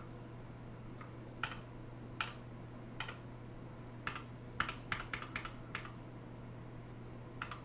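Keys on a TADA68 mechanical keyboard with light Gateron Clear linear switches being pressed one at a time, with a quick run of several presses midway, as the backlight is cycled through its lighting modes. A faint steady low hum runs underneath.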